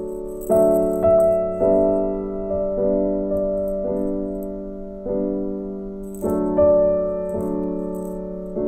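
Soft background piano music, slow chords struck roughly once a second and left to fade. A plastic ball toy rattles faintly now and then as the kitten paws it.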